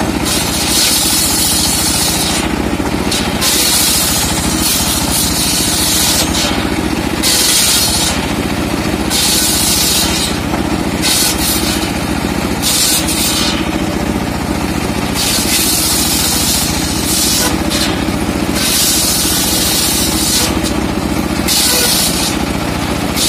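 Homemade bench circular sawmill ripping trembesi (rain tree) logs into boards: its motor runs steadily while a high-pitched rasp of the blade in the wood comes and goes every second or two as the timber is pushed through.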